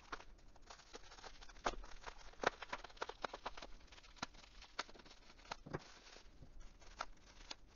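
Plastic bubble wrap crinkling as hands handle and open it, with irregular sharp crackles and clicks.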